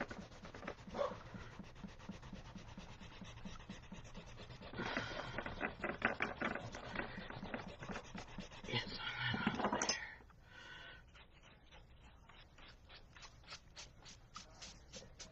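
Rubber eraser rubbed back and forth on drawing paper, erasing pencil lines under the ink, in quick repeated strokes of about four a second.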